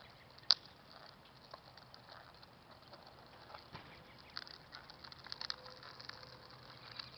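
Faint crackle and light ticking of a child's plastic tricycle wheels rolling over wet, gritty asphalt, with one sharp click about half a second in.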